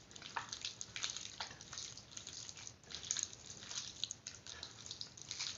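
Hands working marinated chicken pieces in flour in a ceramic dish: faint, irregular soft squishing and patting as the pieces are coated.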